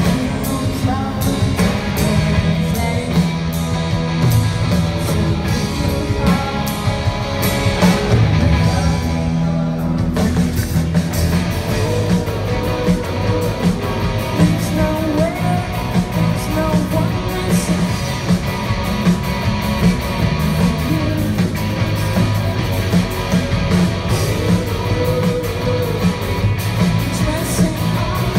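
Live rock band playing: a woman singing lead over electric guitar, bass and a drum kit, heard loud from the audience.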